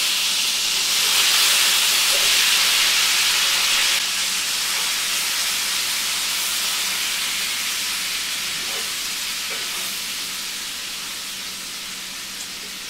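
Canned diced potatoes frying in a cast iron skillet of hot bacon grease: a loud, dense sizzle, strongest in the first few seconds after they go in, then slowly dying down.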